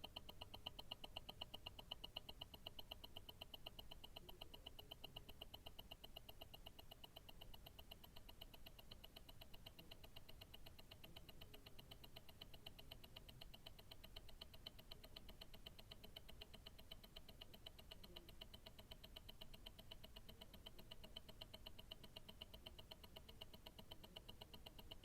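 Ticking of a mechanical tourbillon watch movement's escapement, heard through a stethoscope: a faint, rapid, perfectly even ticking, each tick ringing briefly.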